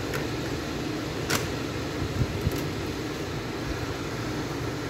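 Cassette deck running the blank lead-in of a tape: a steady hiss with a low hum, and three faint clicks.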